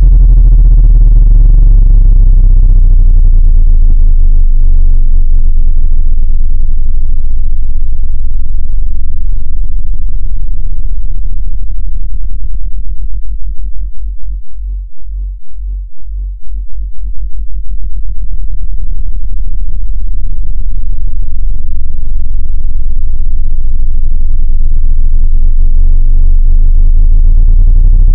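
Loud, low-pitched electronic tone from a speaker-cleaning track, buzzing with overtones. About halfway through it breaks into rapid pulsing for a few seconds, then goes steady again.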